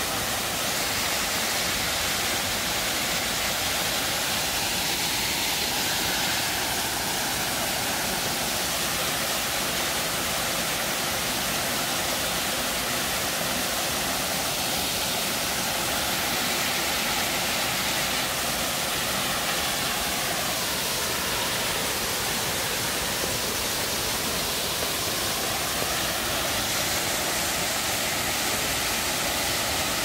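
Waterfall pouring down a granite rock face into a deep plunge pool: a steady rushing hiss of falling water with little low rumble.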